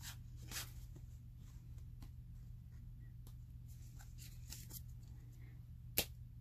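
Faint ticks and rustles of thin cardboard trading cards being flipped through by hand, with one sharper click about six seconds in, over a steady low hum.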